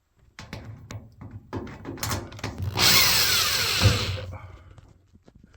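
Power drill spinning out a screw from a dryer's sheet-metal top panel, running for about a second and a half and then winding down. Clicks and knocks of handling come before it.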